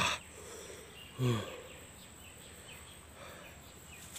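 A man's brief groan, falling in pitch, about a second in, from a man in pain after eating hot chillies, over a faint background of chirping insects.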